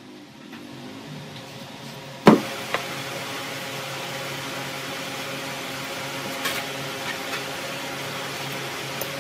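Steady mechanical hum, with one sharp knock about two seconds in and a few light taps later as a steel ruler and pen are worked against a timber block.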